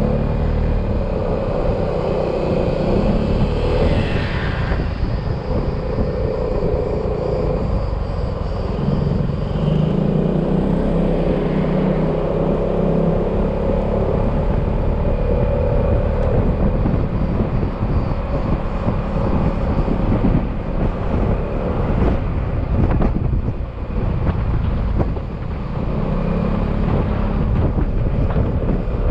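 Yamaha XMAX maxi-scooter's single-cylinder engine running at road speed, its pitch shifting up and down a little with the throttle, over a steady rush of wind and road noise.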